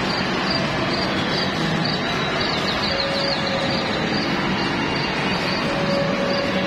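Carousel turning, its drive mechanism and platform giving a steady mechanical running noise, with a faint steady whine that comes and goes.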